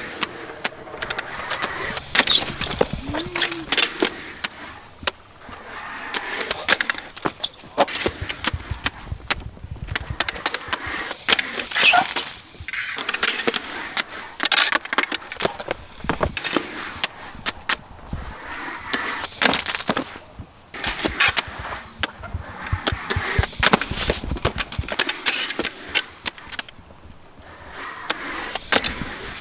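Skateboard wheels rolling on concrete under a fishing rod used as the deck, with many sharp clacks and knocks throughout as the trucks and rod hit the concrete.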